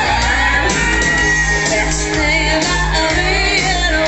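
A loud song with a singing voice over a steady bass, played through loudspeakers for dancing.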